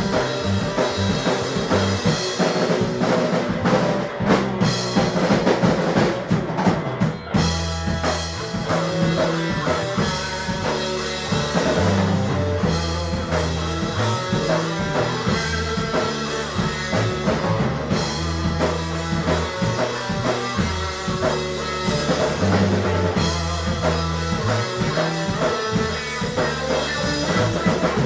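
Rock band playing live: electric guitar over drum kit, with low bass notes underneath and no vocals. The band drops out briefly about seven seconds in.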